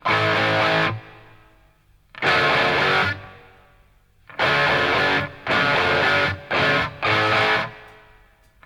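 Background music: a distorted electric guitar plays held chords in separate stabs with pauses between them, the last three coming in quicker succession.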